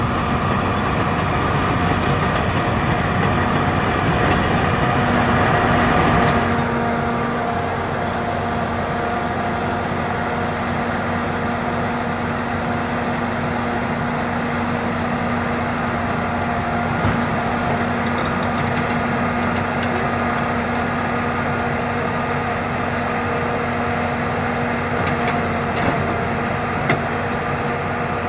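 A large engine idling steadily, with a steady hum. About six seconds in it becomes a little quieter and duller.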